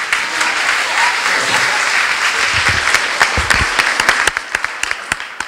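An audience applauding. Dense clapping for about three seconds thins out into scattered single claps near the end.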